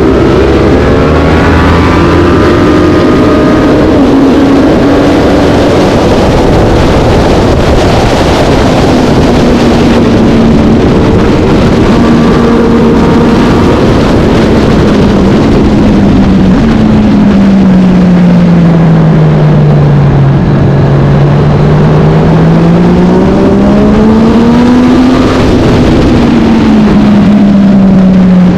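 Racing motorcycle engine at race pace, loud and continuous, its pitch rising and falling with throttle and gear changes. About two-thirds of the way through there is a long slow fall in pitch, then it climbs again and drops suddenly. A dense rushing noise runs under it throughout.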